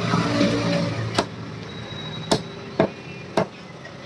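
Cleaver chopping through chicken on a wooden chopping block: four sharp chops, irregularly spaced, roughly half a second to a second apart.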